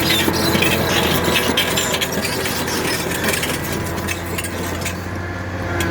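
Diesel engine of a Caterpillar 973D track loader idling steadily, with some light clattering in the first few seconds.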